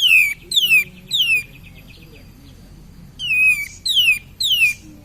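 Kapas tembak bulbul calling in two bursts of three sharp, steeply falling whistles, the bursts about two seconds apart.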